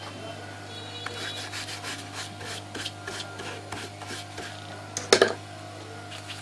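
Quick repeated rubbing strokes, about three a second, as the chip is scrubbed clean with thinner, then one louder sharp scrape about five seconds in, over a steady low electrical hum.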